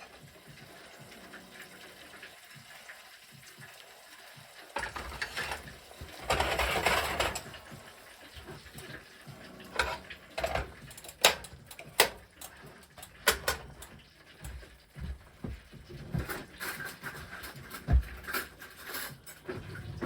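Utensils scraping and clinking on dishes as food is plated: a quiet start, a short scraping rustle, then a run of sharp clicks and knocks.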